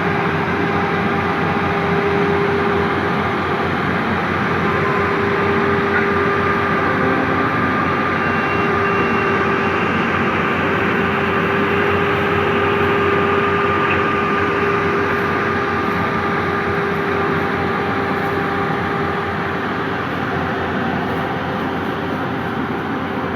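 Yanmar YH850 combine harvester running: a steady machine noise with a few held whining tones that slowly fade in and out.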